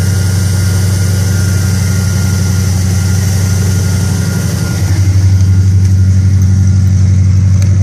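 An engine idling steadily with a low, even note, growing louder about five seconds in.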